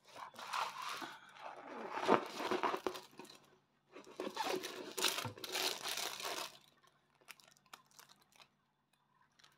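Crinkling and rustling of a large diamond-painting canvas and its plastic film cover as it is handled, in two stretches of a few seconds each, followed by a few faint ticks near the end.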